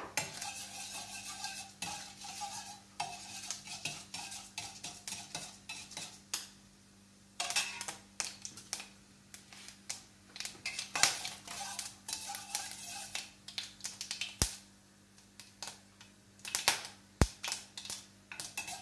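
Metal spoon stirring urad dal and mustard seeds in hot oil in a steel kadai, with repeated clinks and scrapes against the pan and a brief pause partway through.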